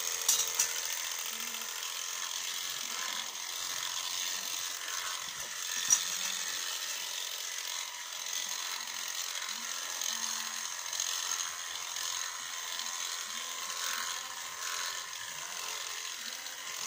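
Electric sheep-shearing handpiece running as it clips through a sheep's fleece: a steady high mechanical whine, with a few sharp clicks near the start and one about six seconds in.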